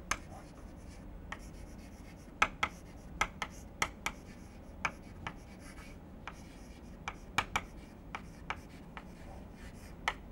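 Chalk writing on a chalkboard: irregular sharp taps and short scratches as each letter is stroked onto the board.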